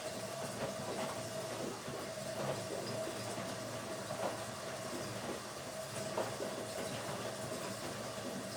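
Automatic washing machine running its wash cycle: a steady motor hum with irregular clunks and rattles from the drum and load.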